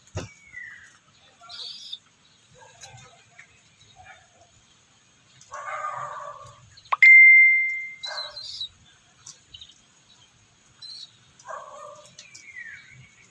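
Caged pet bird making a few short chirps and falling whistled notes, with bits of shuffling in the cage. About seven seconds in comes one sharp metallic ding, the loudest sound, ringing on as a single clear tone for about a second.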